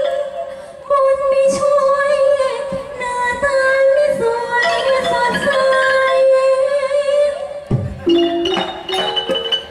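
A woman singing a long, wavering melodic line into a microphone in a Thai likay performance, amplified through stage speakers with musical accompaniment.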